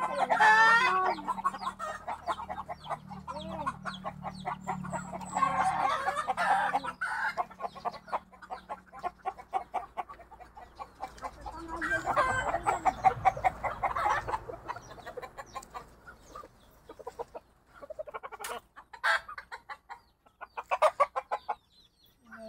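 Backyard chickens clucking steadily, with a rooster crowing at the start and again about 5 and 12 seconds in.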